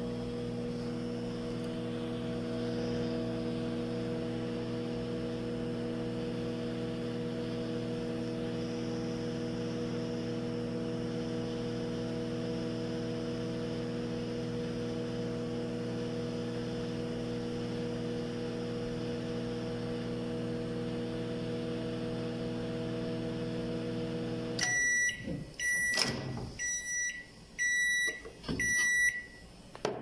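Microwave oven running with a steady electrical hum, then stopping near the end as its countdown runs out and sounding a run of about five short, high beeps to signal that the heating time is finished.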